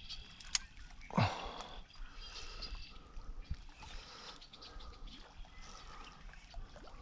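Birds calling in the background, with short repeated calls. About a second in, one louder call drops steeply in pitch.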